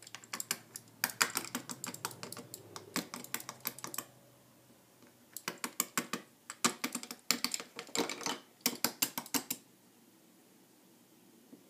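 Quick runs of light clicks and taps of a hard plastic Lego Duplo figure knocking against Duplo bricks and baseplate studs. A long run of clicks first, then three shorter runs, stopping about ten seconds in.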